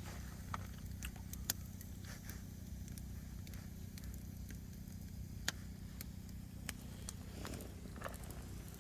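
Firewood burning in an open fire, crackling with irregular sharp pops, over a steady low rumble.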